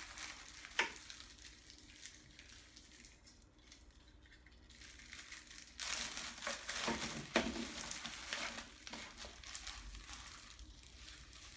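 Paper and plastic packaging rustling and crinkling as accessories and paperwork are taken out and handled, with a sharp click about a second in; the handling is quiet at first and grows busier from about halfway.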